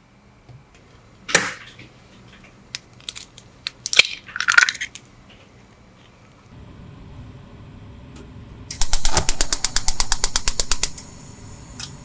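A few separate taps and cracks, then raw eggs being beaten fast in a bowl: a rapid clicking of about ten strokes a second that lasts about two seconds. A steady hiss comes in as the beating stops.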